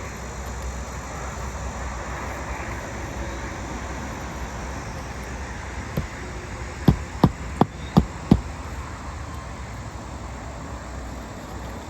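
Roofing nails being driven into an asphalt replacement shingle: five sharp strikes in quick succession, about three a second, over a steady background of traffic hum.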